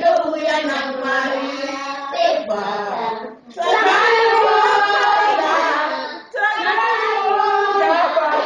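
A group of voices, children's among them, singing a song in long held phrases, with short breaks between phrases about three and six seconds in.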